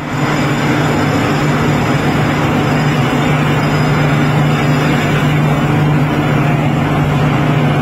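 A red-hot forged steel ring being quenched in a water tank: the water boils and hisses steadily around the hot metal, with a steady low hum underneath.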